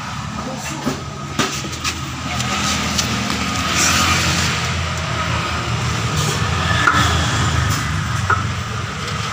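A vehicle engine idling steadily, with a few light knocks between one and two seconds in and a hiss that swells in the middle.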